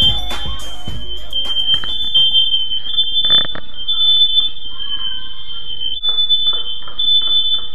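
Smoke alarm sounding: a loud, high piercing tone that flips between two close pitches with brief breaks. Music fades out in the first second.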